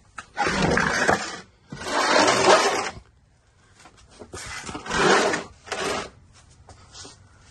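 A plywood cradle scraped across a concrete floor three times, each a rough drag of about a second as it is pushed into position.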